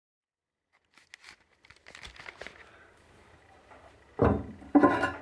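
Handling noises: scattered clicks and rustling, then two loud knocks about half a second apart near the end, the second with a brief ringing tone.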